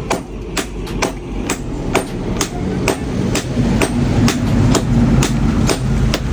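Steady hammering: sharp, evenly spaced blows about two a second, over a low steady hum.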